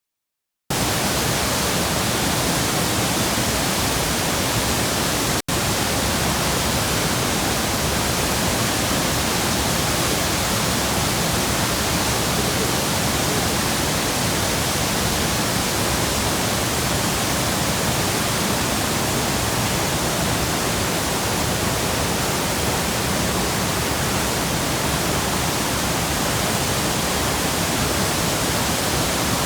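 Steady, loud rushing of Athabasca Falls, the Athabasca River pouring over the falls, starting abruptly just under a second in, with a split-second break about five and a half seconds in.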